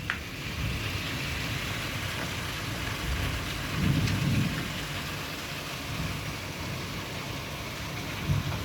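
Heavy rain falling steadily, with a low rumble swelling about four seconds in and again near the end, and a brief click right at the start.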